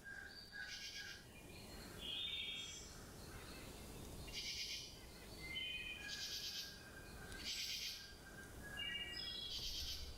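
Small birds singing faintly: short buzzy trills and whistled chirps repeating every second or two over a low outdoor hiss.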